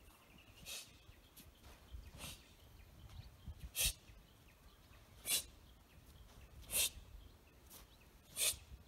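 A taekwondo practitioner's sharp breath exhalations, one with each move of the pattern Cheonji Tul: six short hissing bursts about a second and a half apart.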